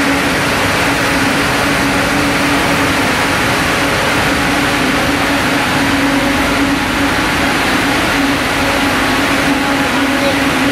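KTTM ring spinning frames running: a loud, steady whir from the spindles and drives, with a constant low hum under it.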